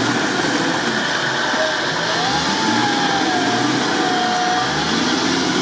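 Off-road 4x4's engine running hard under load, its tyres churning through deep, thick mud. A whine climbs about two seconds in and holds before easing near the end.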